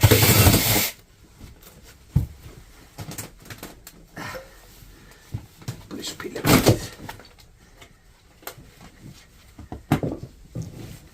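An old upholstered sofa being sawn apart and dismantled by hand. A loud rasping burst lasts about a second at the start, then scattered knocks and clicks from the wooden frame, with another loud burst about six seconds in.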